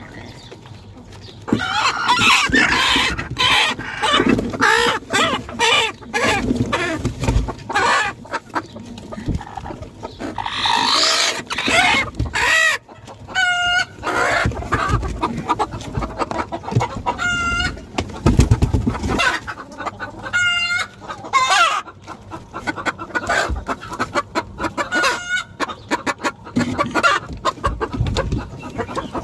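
A flock of chickens in a poultry house, clucking and calling continuously. From about the middle on there are loud pitched calls every three to four seconds, mixed with many sharp clicks and a few low thumps.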